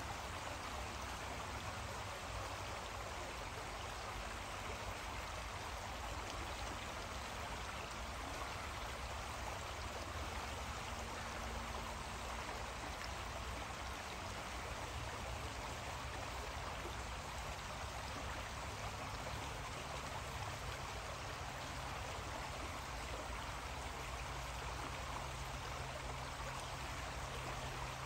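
Creek water flowing in a steady, even rush, with a low hum underneath.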